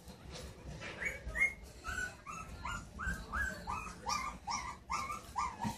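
A Havamaltzu puppy (Havanese–Maltese–Shih Tzu cross) giving a rapid series of short high-pitched cries, about two to three a second, starting about a second in.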